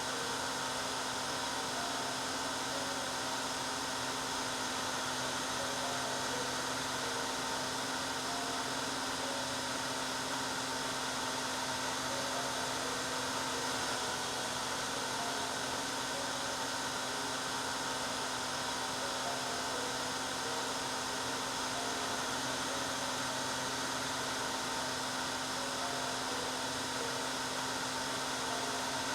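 Hair dryer running steadily: a continuous blowing rush with a steady motor hum under it, played as white noise.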